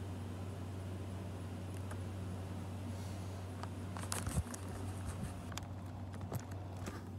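A steady low hum with scattered clicks and rubbing from a phone being handled and swung about, the clicks bunching from about four seconds in.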